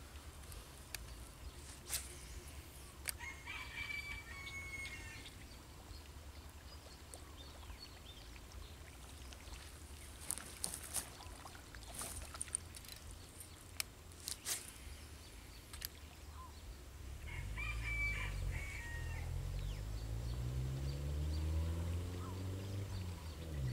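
A rooster crowing twice, once a few seconds in and again near the end, with a few sharp clicks between. From about two-thirds of the way through, a low engine hum rises in pitch and grows louder.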